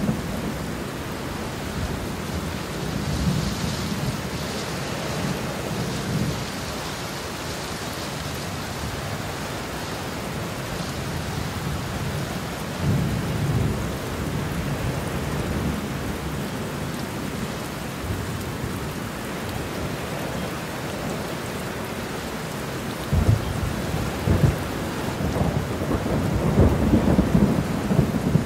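Steady rain hissing, with low rolls of thunder rumbling three times: a few seconds in, about halfway, and longest and loudest near the end.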